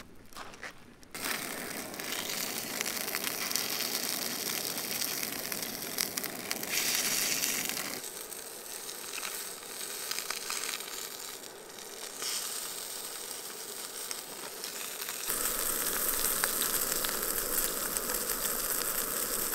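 Brook trout frying in olive oil in a small pan on a backpacking canister stove, sizzling steadily, a little louder from about three quarters of the way through.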